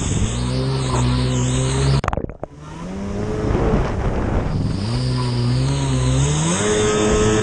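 Race jet ski's two-stroke engine revving hard, its pitch climbing and holding, with water spray hissing. About two seconds in the sound cuts out briefly with a few sharp clicks, then the engine winds back up twice.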